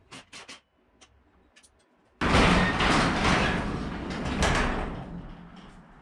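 Sectional overhead garage door opening: a few light clicks, then about two seconds in a sudden loud rolling noise that fades away over the next few seconds.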